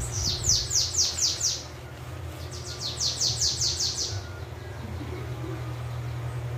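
Caged bananaquit (sibite) singing two rapid phrases, each a run of seven or eight high, quick downward-sweeping notes, about two seconds apart. It is the song type its keeper calls the 'belga' beat.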